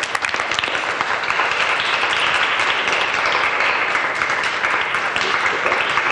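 A group of people applauding, dense steady clapping with sharp separate claps standing out near the start.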